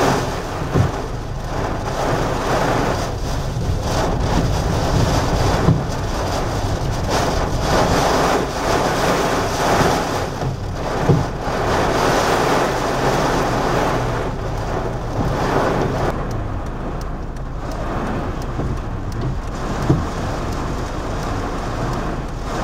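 Hurricane wind and heavy rain beating on a moving car, heard from inside the cabin, with the car's engine and road noise underneath. The rush swells and fades in gusts, with a few sharp knocks on the body.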